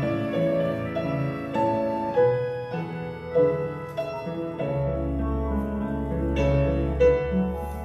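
Instrumental keyboard music: a slow succession of chords, with a low bass note held through the second half.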